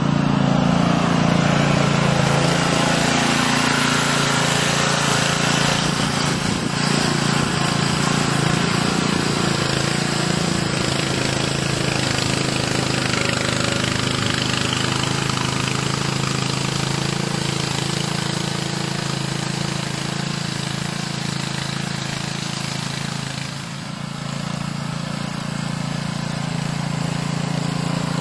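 Honda GXV160 single-cylinder 160cc four-stroke engine of a Max Truck power barrow running steadily. It dips briefly in level a little over three-quarters of the way through, then comes back up.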